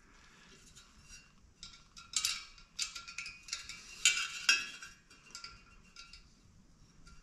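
Light, irregular metallic clinks and taps as a metal fan blade is worked onto a garage heater's blower motor shaft inside its wire guard, the loudest about two and four seconds in.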